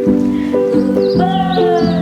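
A slow home-recorded song: sustained chord notes repeat in a steady pattern. About a second in, a held melodic line enters and slowly falls in pitch, with short high chirps above it.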